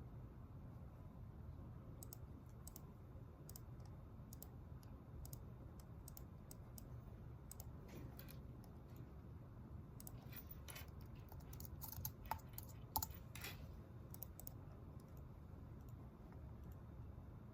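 Typing on a computer keyboard: scattered light keystroke clicks, with a quicker run of keystrokes about ten to fourteen seconds in, over a low steady room hum.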